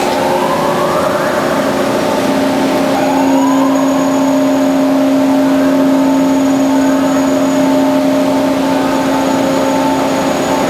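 Band saw running with a steady hum, its whine rising in pitch at the start and again about three seconds in.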